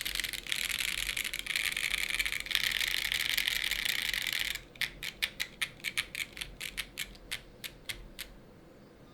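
Mode Sonnet mechanical keyboard with a POM plate, lubed Boba U4T tactile switches and PBTFans PBT keycaps being typed on. A fast, dense run of keystrokes for about four and a half seconds gives way to about twenty separate keypresses at a slower pace, which stop about a second before the end.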